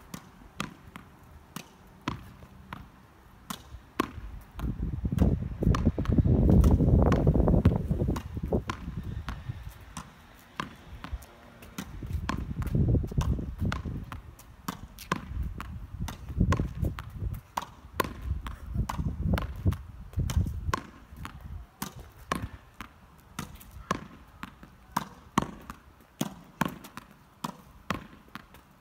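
Tennis ball hit again and again against a brick wall: sharp knocks of racket on ball, ball on wall and ball bouncing on paving stones, several a second. Bursts of low rumble swell and fade, loudest from about five to eight seconds in.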